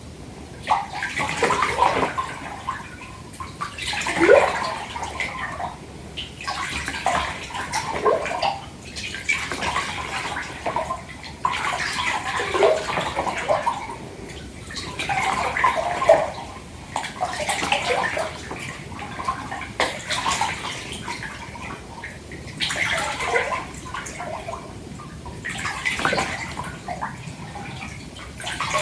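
Bath water sloshing in a filled tub, stirred by hand: irregular swishes every second or two, some ending in short falling gurgles.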